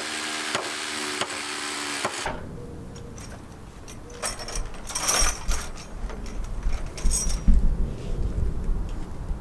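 A cordless impact driver runs with a steady whine and regular sharp clicks as it drives screws into the timber framing, then stops abruptly about two seconds in. After that comes a low rumbling noise with a few brief high-pitched sounds.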